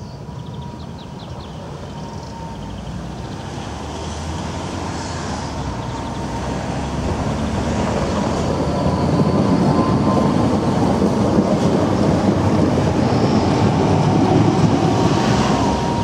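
Bombardier S-type (Flexity Classic) low-floor tram running on curved track toward the listener and passing close by. Its rolling rumble grows steadily louder over the first half and stays loud as it goes past.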